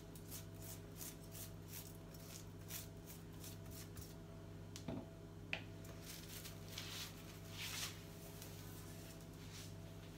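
Pastry brush stroking oil over cling film: soft, quiet brushing swishes, one or two a second, with a couple of small clicks about halfway through.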